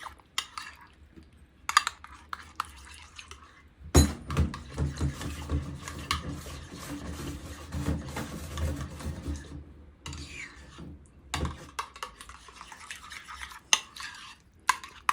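Yogurt being whisked by hand in a bowl: a utensil clinks and scrapes rapidly against the bowl for several seconds, after a sharp knock about four seconds in. Scattered clinks come before and after.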